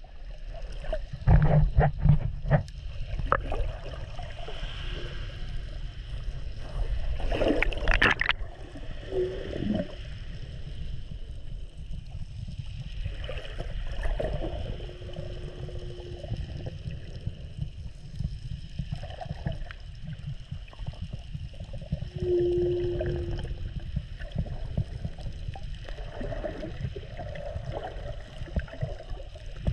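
Underwater sound of sea water moving around a submerged camera: a steady low rumble with knocks and sloshes, loudest about two and eight seconds in, and a few short low hums.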